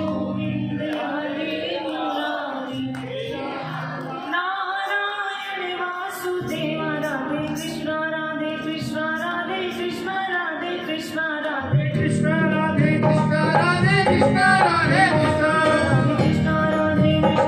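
A Hindu devotional bhajan sung to musical accompaniment, with sharp rhythmic clicks from clapping along. About twelve seconds in, a fuller, louder low accompaniment joins and the music grows louder.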